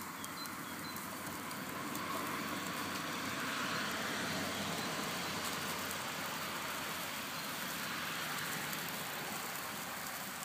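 Steady wash of road traffic from a road close by, growing a little louder around three to four seconds in as a vehicle passes.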